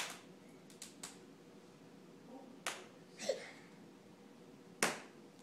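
A young child hiccupping after a tantrum: sharp, sudden hiccups every one to two seconds, one of them with a brief squeak of voice.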